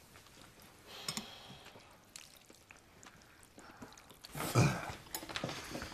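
Quiet room tone with a few faint ticks, then about four seconds in a short, louder vocal sound from a person, falling in pitch.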